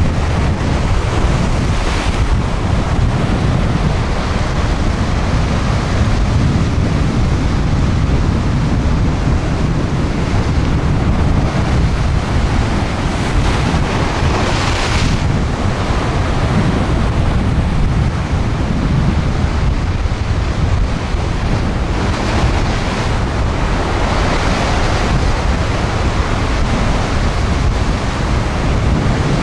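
Rough ocean surf breaking and washing over rocks: a continuous rush of water with several louder surges as waves crash, the strongest about halfway through. Wind buffets the microphone with a low rumble throughout.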